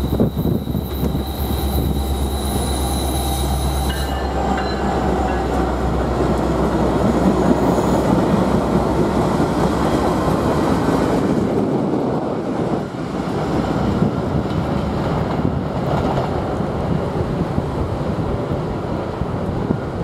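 A consist of Norfolk Southern diesel locomotives running light, led by an SD70ACe, passes close by on curved track. The engines drone and the wheels rumble on the rail. In the first few seconds a steady high-pitched wheel squeal sits over a low engine drone, then the sound settles into a dense, even rumble as the units roll past.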